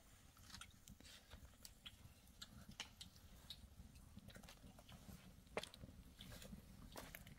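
Faint crackling of a small wood-stick fire: irregular soft pops and clicks, with one sharper snap a little past halfway through.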